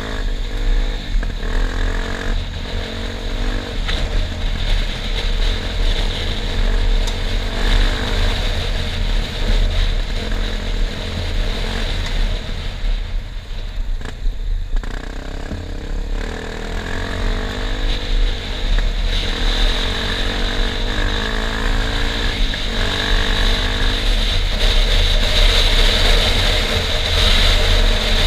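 Enduro dirt bike engine running while being ridden, its revs rising and falling repeatedly with throttle and gear changes over a steady low rumble. It eases off briefly about halfway through.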